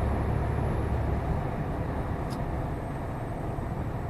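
Lorry cab noise on the move: steady engine drone and tyre and road noise, the deepest rumble easing off about a second in.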